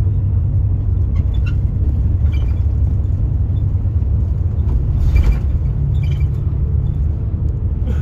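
Steady low rumble of a car on the move, heard from inside the cabin, with a brief louder hiss about five seconds in.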